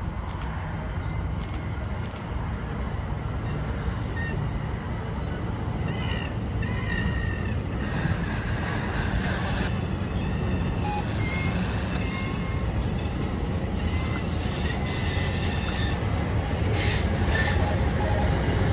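Train rolling past on the mainline: a steady low rumble of wheels on rail that grows slowly louder, with short high wheel squeals coming and going.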